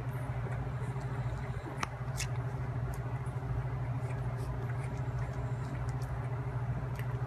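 Steady low hum and hiss, with a couple of faint short squeaks about two seconds in from newborn puppies nursing.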